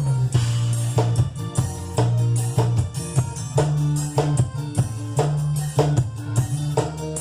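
Live band playing an instrumental forró groove during a soundcheck: a drum kit and tambourine-like percussion keep a steady beat over low sustained bass notes that change every second or so.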